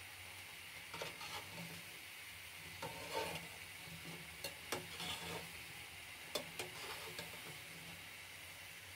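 Moong dal bhallas deep-frying in hot oil with a steady, low sizzle, while a slotted metal spatula stirs and turns them, clicking against the metal kadhai about eight times.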